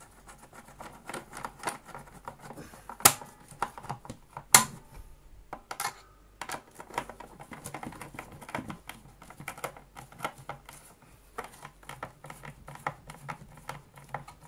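Screwdriver turning a screw into the metal rear-wheel bracket of a Hoover Junior 1334A upright vacuum, with small irregular clicks and scrapes of metal on metal. Two sharper knocks come about three and four and a half seconds in.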